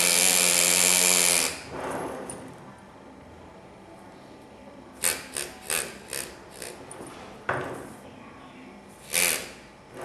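Andu pneumatic engraver's handpiece buzzing steadily as its graver cuts into a metal Harley-Davidson engine cover, stopping about a second and a half in. Several short bursts follow later.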